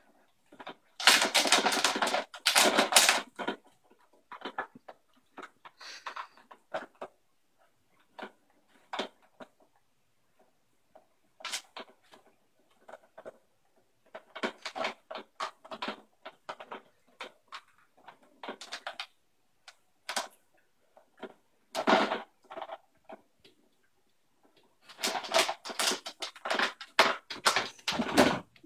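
A puppy nosing and pawing at a plastic treat puzzle feeder, which clatters and rattles in irregular bursts of clicks. The bursts are heaviest about a second in and near the end, with quiet gaps between.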